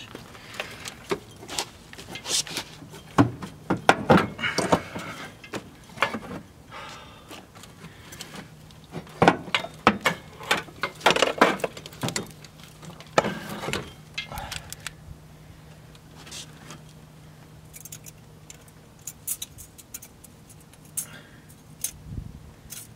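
Hands working a turbocharger and its hoses loose in a car's engine bay: irregular metallic clinks, knocks and scrapes, busiest in the first fifteen seconds and sparser after, over a faint steady low hum.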